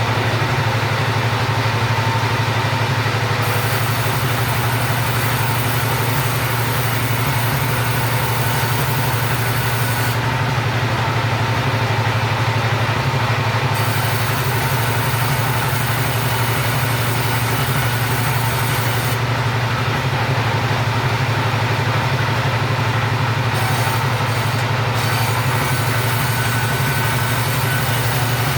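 The engine of a wood-sawing machine running steadily, an even low drone that does not change.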